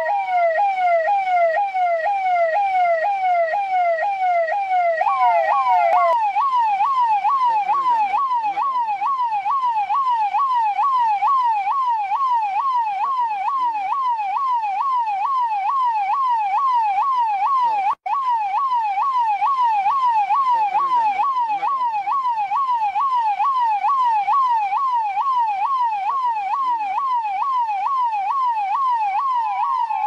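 Indian police siren in a fast yelp, its pitch sweeping up and down about twice a second. About five seconds in, a higher-pitched yelp takes over from the lower one. The sound cuts out for an instant midway through.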